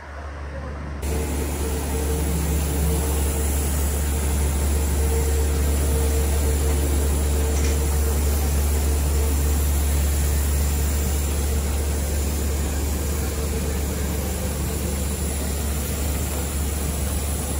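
Steady engine rumble with a strong low hum and an even hiss of air noise, stepping up about a second in and then holding level.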